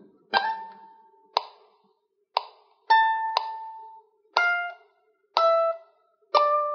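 Low-G ukulele picking a slow single-note lead lick, a grace-note slide up into the first note and then a few plucked notes each left to ring, over a metronome clicking once a second at 60 bpm.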